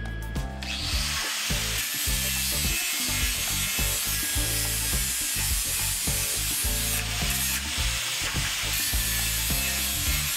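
Angle grinder cutting steel square tubing: a steady, hissing grind that starts about a second in and runs on. Background music plays underneath.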